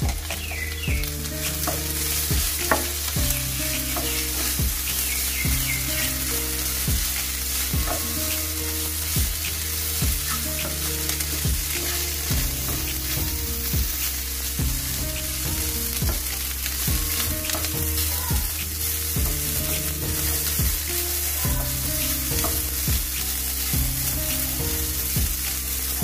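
Beef pieces sizzling steadily in hot coconut oil in a non-stick frying pan while a wooden spatula stirs and scrapes them, with frequent short scrapes and taps against the pan. The beef is being deep-fried until it turns dark brown.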